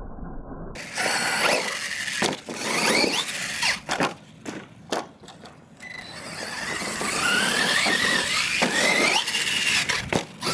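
Losi LMT radio-controlled monster truck's electric motor and drivetrain whining, rising and falling in pitch with short bursts of throttle. A lull comes a few seconds in, then a longer run where the whine climbs and falls away. The truck is running on a 3S LiPo battery.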